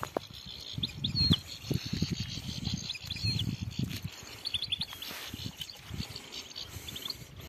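Footsteps crunching through dry grass and stubble, with a few short, high chirps from European goldfinches scattered through it.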